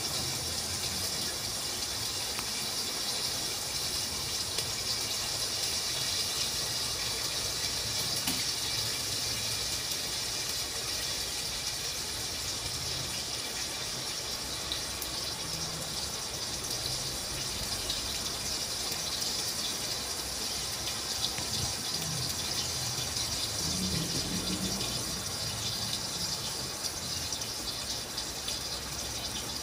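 Red chili spice paste frying under a glass lid, sizzling steadily and spattering against the lid.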